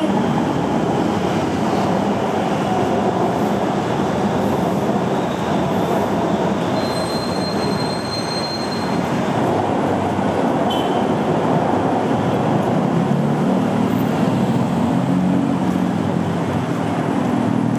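Steady rolling rumble of a moving vehicle, with a faint high whine for a couple of seconds near the middle.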